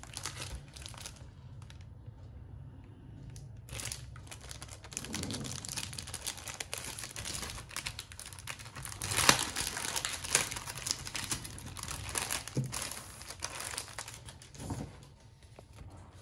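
Clear plastic packaging crinkling and tearing as it is pulled off a book. A brief crackle comes first, then after a short lull a long, dense run of crackling that is loudest about halfway through.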